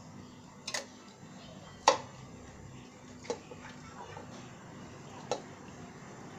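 A metal bowl knocking against the rim of a non-stick cooking pot four times as marinated mutton is tipped in, the second knock the loudest.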